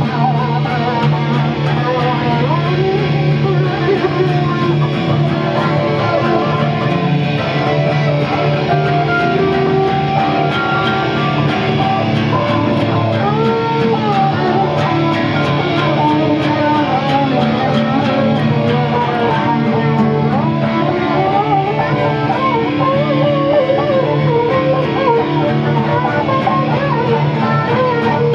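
Acoustic and electric guitars playing an instrumental passage together: strummed acoustic chords under a wavering melodic lead line, over a steady low drone.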